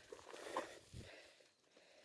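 A few faint footsteps on the ground, dying away after about a second into near silence.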